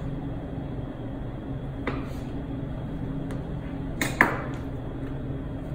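Steady low mechanical hum of the cutting room, with a few short knocks of a knife against a plastic cutting board while beef ribeye is sliced into fillets, the loudest pair about four seconds in.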